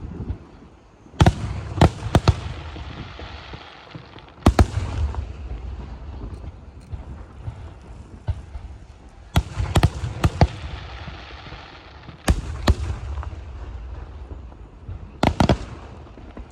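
Aerial fireworks shells bursting overhead: five groups of sharp booms, one to four bangs each and a few seconds apart, with a low rumble between them.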